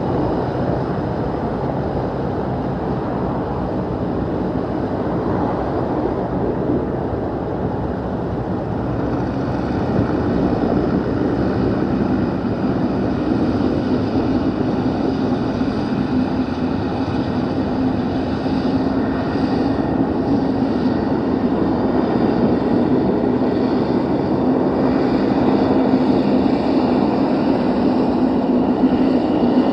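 De Havilland Dash 7's four Pratt & Whitney PT6A-50 turboprops running at taxi power: a steady propeller drone with a high turbine whine. It grows louder about ten seconds in as the aircraft taxis broadside.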